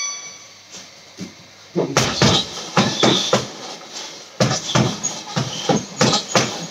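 Gloved punches landing on a heavy bag in quick, irregular combinations, starting about two seconds in.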